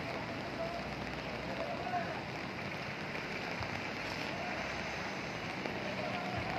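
Steady rushing noise of a flooded, muddy river in spate, mixed with falling rain.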